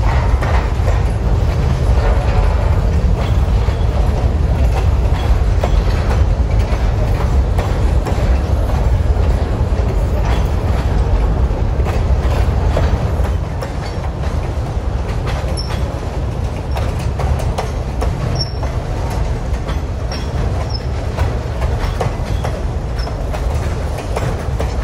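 Freight train cars rolling past with a steady low rumble, their wheels clicking over rail joints. The sound gets a little quieter about halfway through.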